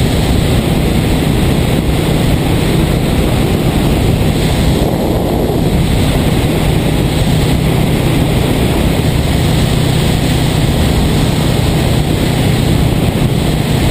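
1978 Yamaha XS400's parallel-twin engine running at a steady cruise, its pitch holding even, under heavy wind rush on the microphone.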